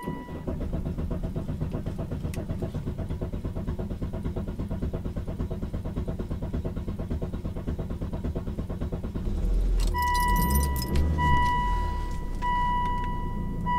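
A Volvo D5 five-cylinder diesel cranks for about nine seconds with an even, fast pulsing from the starter, then catches and runs. The long crank is due to air left in the fuel system after a fuel filter change. As it runs, a car warning chime repeats over and over.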